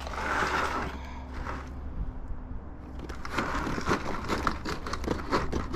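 Hand snips cutting through vinyl siding: a brief scrape near the start, then from about three seconds in a quick run of crunchy clicks as the blades chew through the panel.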